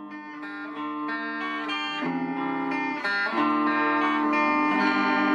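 Yamaha Pacifica 012 electric guitar being played: picked notes and chords ringing on, swelling in over the first second, with chord changes about two and three seconds in.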